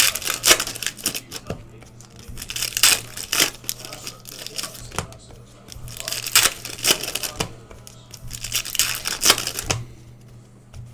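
Trading-card packs being torn open and the wrappers crinkled, in repeated bursts of tearing and rustling.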